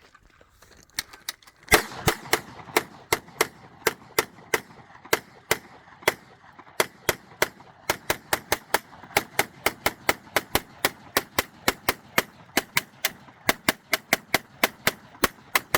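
9mm Gatling gun firing a long, steady string of single shots, about three to four a second, starting about a second in and running to the end.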